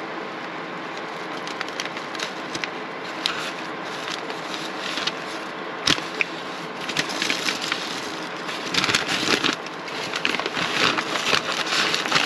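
Paper and plastic food wrapping crinkling and rustling as a packaged piece of salmon is unwrapped by hand, busier in the second half, with one sharp crackle about six seconds in. A steady hiss runs underneath.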